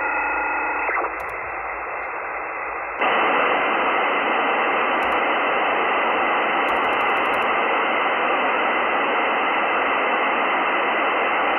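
Narrowband FM radio receiver tuned near 27.846 MHz: the tail of a data burst, several steady tones at once, cuts off about a second in, leaving receiver hiss that jumps louder about three seconds in and then holds steady. A few faint clicks, with a quick run of them around seven seconds.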